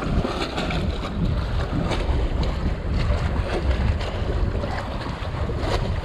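Wind buffeting the microphone, over choppy water lapping and splashing against the kayak hull and bridge pilings.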